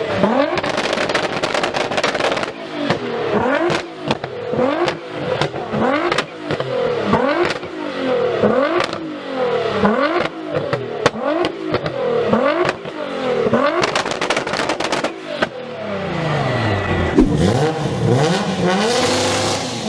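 A vehicle engine with a very loud exhaust being revved again and again, about once a second: each time the pitch shoots up and falls back, with sharp pops between the revs. Near the end a longer, lower rev falls and climbs again.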